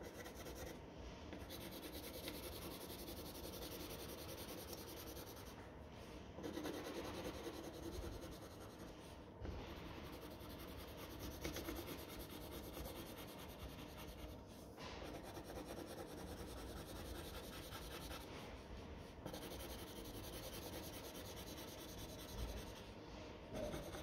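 Coloured pencil shading on paper: a faint, steady scratchy rubbing of back-and-forth strokes, broken by short pauses every few seconds as the pencil lifts.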